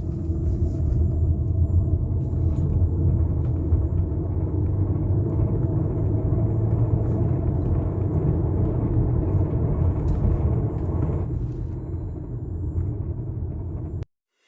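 Hyundai Santa Fe 4WD driving, a steady low rumble heard from inside the vehicle, which carries the under-chassis grinding noise the vehicle is being tested for. The rumble eases slightly near the end and then cuts off.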